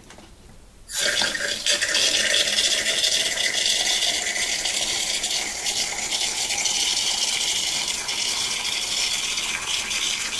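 Water running hard and steadily from a washing-machine supply valve, opened fully with its hose removed, starting suddenly about a second in. This is a flow test of the valve after its packing nut was tightened to stop a leak.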